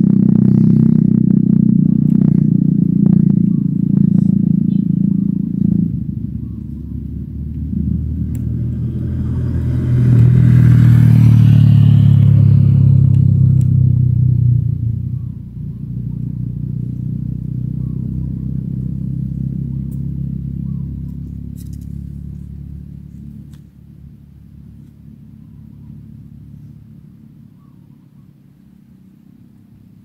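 Motor vehicle engine running nearby, loudest about ten to fourteen seconds in, then fading away.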